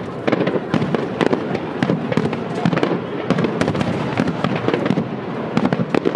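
Aerial firework shells bursting in quick succession: a continuous run of sharp bangs, several a second, overlapping one another.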